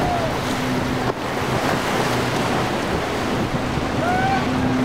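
Motorboat engine hum over rushing water and surf, with wind buffeting the microphone. A couple of short squeals that glide in pitch come near the end.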